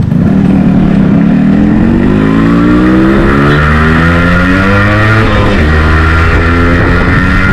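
Yamaha RX100's single-cylinder two-stroke engine accelerating, its pitch rising for about five seconds, dropping briefly at a gear change, then pulling on at a steady pitch.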